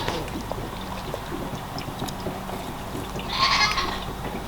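A pygmy goat bleats once, about three seconds in, a high call lasting under a second.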